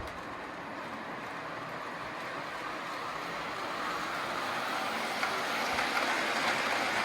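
Conventional O gauge toy train locomotive running on three-rail tubular track: a steady whirring rumble of motor and wheels on the rails that grows gradually louder as the train comes nearer.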